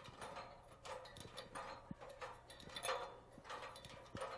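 Faint, even footsteps of a man climbing a ladder, about three steps every two seconds.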